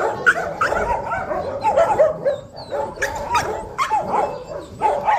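Dog barking and yipping in a rapid string of short, high calls, a few each second.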